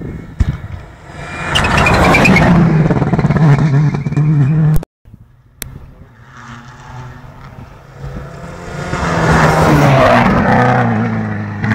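Rally cars at full throttle on a tarmac special stage, passing close by twice. Each pass is a loud, rising engine and exhaust note that drops in pitch as the car goes by. There is an abrupt cut between the passes.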